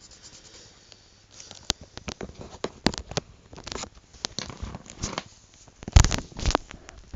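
Handling noise of the recording camera: a run of rustles, taps and clicks as it is picked up and moved over the paper, with a heavy knock about six seconds in and another half a second later.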